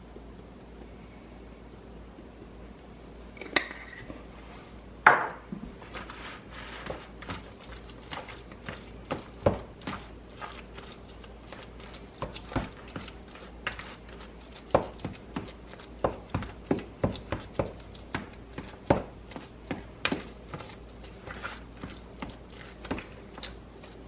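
Spoon or utensil knocking and scraping against a pot while food is stirred. Two louder knocks come about four and five seconds in, then from about six seconds on a steady run of irregular clicks, roughly one or two a second.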